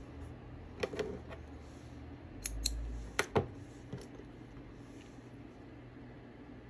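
A few light clicks and taps on a tabletop, in pairs about a second, two and a half and three and a half seconds in, with a soft low bump among them, as small sewing tools, thread and needle are handled.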